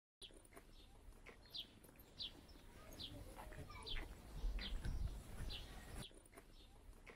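A bird calling with a short, high, falling note repeated about every two-thirds of a second, over faint outdoor background noise with a low rumble swelling about four to five seconds in.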